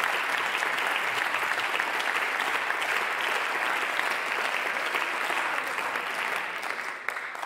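Applause from members of parliament: many people clapping steadily, which thins out and fades away near the end.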